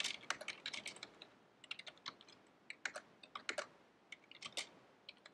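Keystrokes on a computer keyboard: short runs of typing with brief pauses between them, as shell commands are entered in a terminal.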